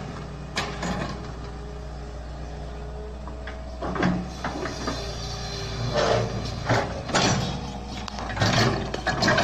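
Diesel engine of a Caterpillar tracked hydraulic excavator running steadily as the machine works, with several short knocks over the second half.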